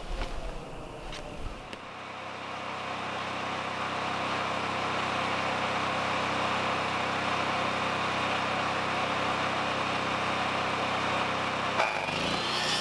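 An engine running steadily; it comes in about two seconds in, grows louder over a few seconds, then holds an even drone. A sharp knock sounds near the end.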